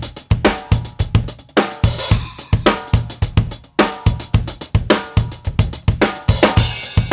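Drum kit groove built around an undampened 14" x 5.5" rock maple snare drum, its backbeat cracks ringing on openly over kick drum and hi-hat. Cymbal crashes wash over the beat about two seconds in and again near the end.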